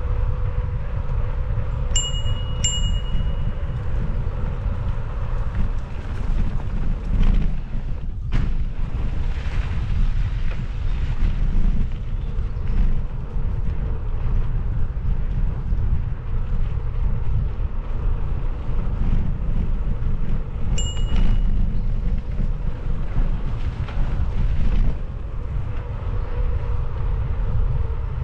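Wind buffeting the microphone over the rumble of a mountain bike rolling along a dirt trail. Short metallic ringing pings come twice in quick succession a couple of seconds in, and once more about twenty seconds in.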